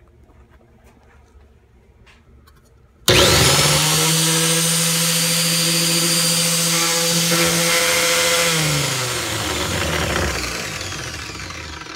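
4.5-inch angle grinder with a cutoff wheel, mounted in a stand, switched on about three seconds in and spinning up at once to a loud, steady high-pitched whine. About nine seconds in it is switched off and the wheel spins down, the pitch falling and the sound fading away.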